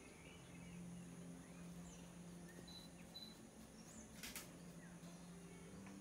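Faint outdoor ambience: a low steady hum with scattered faint, high bird chirps, and one sharp click about four seconds in.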